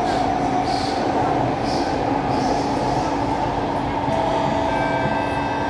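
SMRT C151A metro train running, heard inside the carriage: a steady rumble with a constant hum, a few soft hisses, and thin high whining tones coming in about four seconds in.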